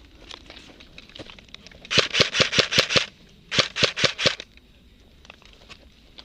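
Airsoft gun firing two quick strings of shots, about six to seven a second: about eight pops, a short pause, then about six more.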